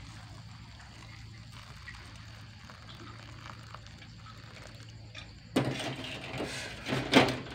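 Boiled water being poured from a pot into a bowl of sliced leaves and bruised lemongrass to steep them, with the splashing loudest from about two-thirds of the way in. A steady low hum runs underneath.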